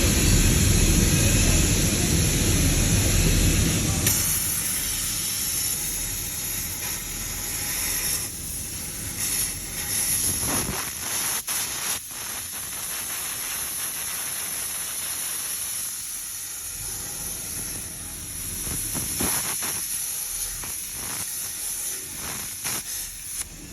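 Plasma cutter cutting metal, a loud hiss of air and arc that is heaviest for about the first four seconds, then settles into a thinner steady hiss broken by a few short crackles and clicks.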